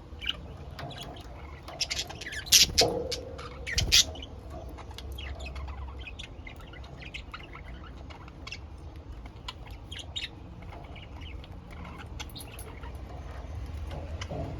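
Pet budgerigars chirping and chattering in a run of short, sharp calls, with a few louder squawks between about two and a half and four seconds in.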